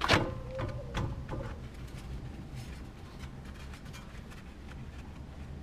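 Metal clanks from levering off a worn-out brake caliper: one sharp clank with a short ringing tone at the start, then two lighter knocks about a second in, followed by faint small clicks.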